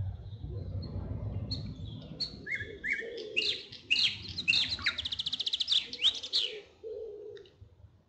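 A songbird singing a varied phrase of chirps and whistles that ends in a fast, even trill, over a low rumble in the first couple of seconds.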